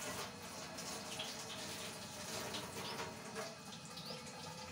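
Milk bubbling at a boil in a cooking pot: a steady watery hiss with small pops and clicks.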